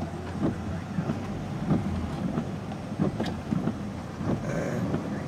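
Steady low rumble of a car's engine and tyres on a wet road, heard from inside the cabin, with a few brief sharp ticks.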